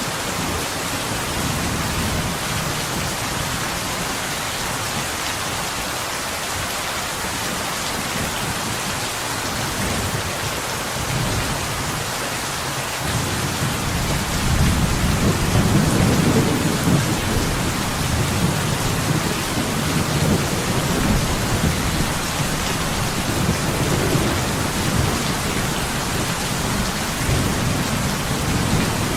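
Steady rain pattering on window glass, an even hiss throughout. A low rumble of thunder builds a little under halfway through, is loudest shortly after, then rolls on more softly under the rain.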